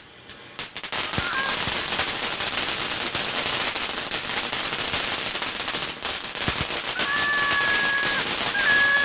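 Firework going off: a dense, continuous crackle that starts about a second in, with a few short high tones near the end.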